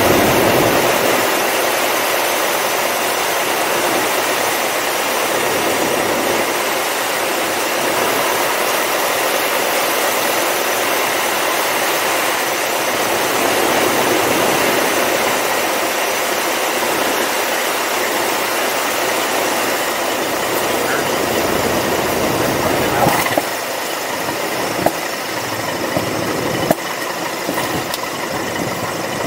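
Single-engine light aircraft's piston engine running steadily with airflow noise in the cabin on final approach. About 23 seconds in the sound drops at touchdown, and a few sharp knocks follow as the wheels roll along the runway.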